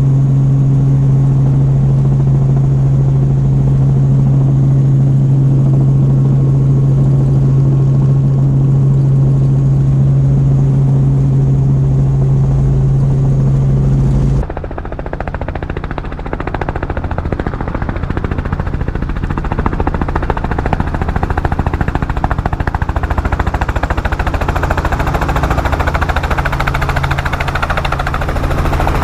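Robinson R44 helicopter heard from inside the cabin: a loud, steady engine and rotor drone. About halfway through it cuts abruptly to the helicopter's rotor and engine noise heard from outside, rougher and brighter, growing toward the end.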